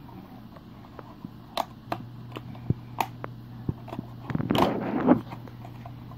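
A small cardboard box being opened by hand: scattered light clicks and taps from its flaps, then a short burst of crinkling packaging about four to five seconds in. A faint steady low hum runs underneath.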